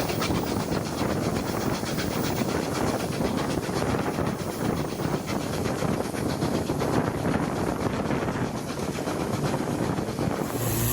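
Victorian R class 4-6-4 steam locomotive No 766 working at speed, its exhaust giving a fast, even beat over the train's running noise.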